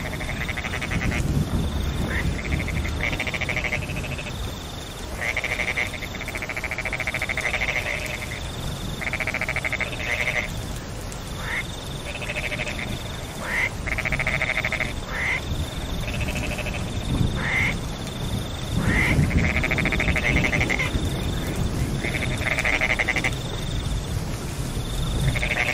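Frogs calling over and over in a chorus, each call a buzzy, pulsed note lasting about a second, over the steady hiss and low rumble of rain.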